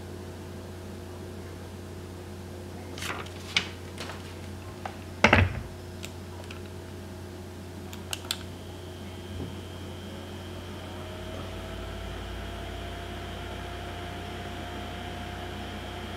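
Handling knocks and clicks, with one loud thump about five seconds in, over a low steady hum. Just past eight seconds a couple of clicks are followed by a small nail-wrap mini heater running, adding a steady high whine and a tone that slowly rises in pitch.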